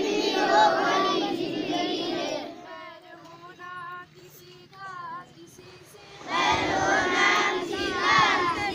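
A large group of schoolchildren singing a prayer together. About two and a half seconds in, the chorus drops away and only one or a few quieter voices carry on, until the whole group comes back in loudly about six seconds in.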